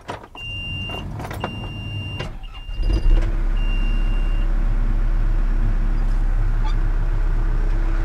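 John Deere 310SG backhoe's diesel engine being started from cold: four high-pitched warning beeps from the cab, the engine cranking briefly and catching about three seconds in, then idling steadily.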